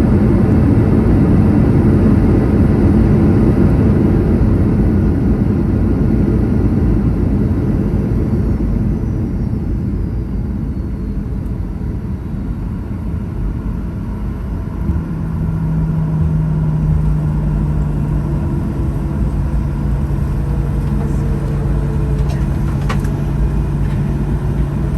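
Cabin noise of a Boeing 737-800 rolling on the ground after landing: a loud low rumble of engines and wheels that eases off gradually as the jet slows. About fifteen seconds in, a steady low hum joins it.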